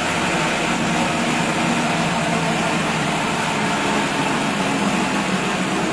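Plastic-waste shredder machine running steadily: a loud, even mechanical noise with a constant low hum.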